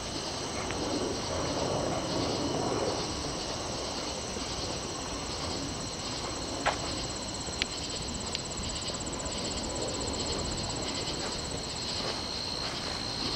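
Crickets chirring steadily in a high, rapidly pulsing trill, with two sharp clicks about halfway through.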